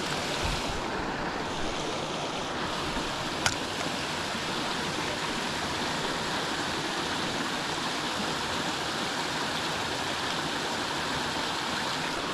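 Water rushing steadily over a small river spillway. A single sharp click sounds about three and a half seconds in.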